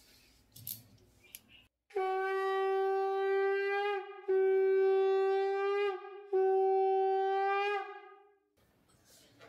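Conch shell (shankha) blown three times in a row to mark the Hindu puja. Each blast is a long steady note with a slight bend in pitch as it ends.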